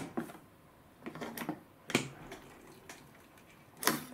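Sharp plastic clicks and knocks from a personal cup-noodle vending machine as its clear plastic door is pushed shut and latched. A few scattered clicks, with a loud one about halfway through and another near the end as the button on top is pressed.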